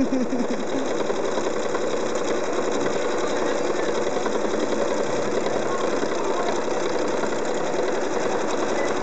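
Janome Horizon sewing machine running steadily at speed, its needle stitching rapidly while free-motion quilting on a quilting frame.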